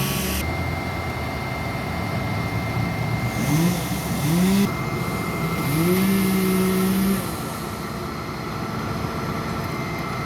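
A motor vehicle's engine accelerating, its pitch rising in quick steps a few seconds in and then climbing and holding for about a second before fading, over steady outdoor traffic noise.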